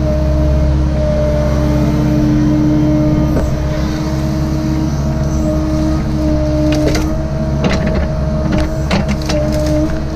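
Cat 306 mini excavator's diesel engine and hydraulics running steadily, a constant whine over the low engine rumble. A few sharp knocks about two-thirds of the way through and again near the end as the arm works.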